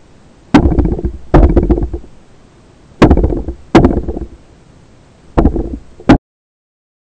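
Six sharp underwater knocks in three pairs, each trailing off in a short muffled rumble: handling knocks on the camera mounted on a speargun. The sound cuts off suddenly near the end.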